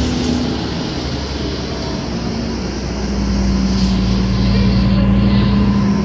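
Cummins ISL diesel engine of a 2006 New Flyer D40LF transit bus running, heard from inside the bus over road noise; its steady low note gets stronger about three seconds in.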